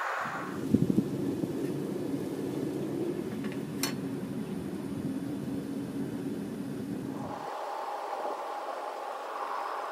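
Propane-fired backyard foundry furnace running: a low rumble with a steady deep hum, a few knocks about a second in, then back to a higher rushing hiss about seven and a half seconds in.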